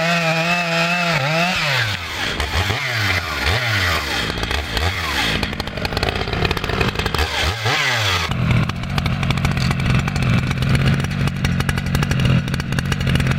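Chainsaw engine held at high revs, then throttled down and up again several times, each time with a falling and rising whine. About eight seconds in it settles to a steady, rattly idle.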